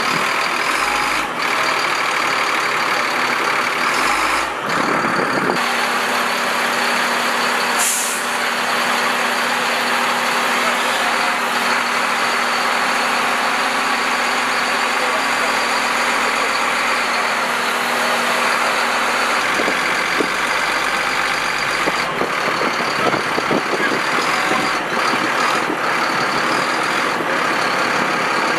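HIMARS truck's diesel engine running as the truck moves on a transport aircraft's cargo ramp, amid a loud steady rush of noise with a high whine. A short hiss of air comes about eight seconds in.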